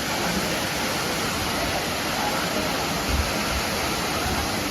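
Waterfall's steady rush of falling water, with a brief low bump about three seconds in.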